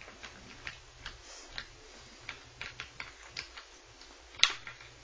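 Small screwdriver working the screws of a laptop screen bezel, a run of irregular light clicks of metal on the screws and plastic, with one louder click about four and a half seconds in.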